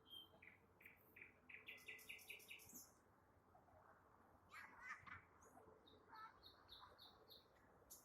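Nightingale singing: a phrase of repeated notes that speeds up, then after a short pause a few sharp notes and a run of about six evenly spaced whistled notes.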